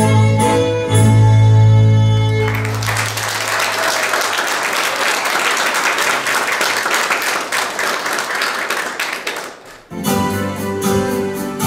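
Folk-dance music ends about two seconds in and audience applause follows, fading out about nine seconds in. About ten seconds in, the music for the next dance starts.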